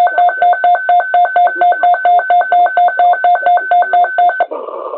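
Weather alert radio's alarm beeping rapidly, about five short two-tone electronic beeps a second. The beeping cuts off about four and a half seconds in as the radio switches over to a broadcast voice.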